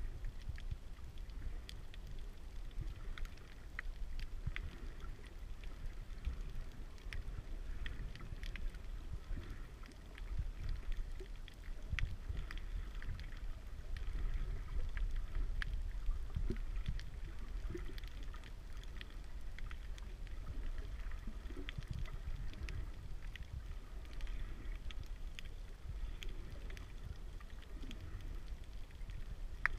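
Underwater ambience heard through a submerged camera: a steady low rumble of moving water, with scattered faint clicks and crackles throughout.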